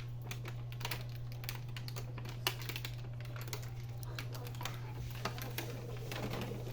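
Irregular light clicks and taps of small plastic parts being handled, over a steady low hum.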